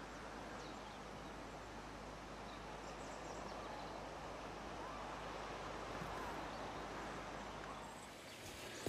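Steady outdoor background noise, an even hiss, with a few faint bird calls.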